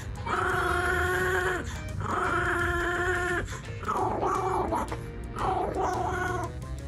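Background music: a held, pitched note with overtones, sounded about four times at roughly two-second intervals, the later notes wavering, over a low steady hum.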